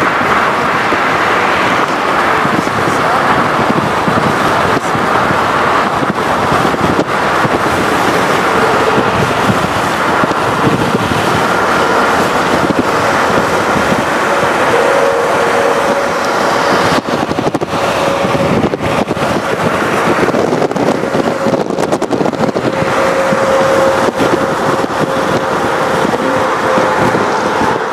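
Airbus A330-300 airliner on final approach, its Rolls-Royce Trent 700 jet engines giving a loud, steady drone with a humming tone that grows stronger in the second half as the plane comes closer, mixed with wind and traffic noise.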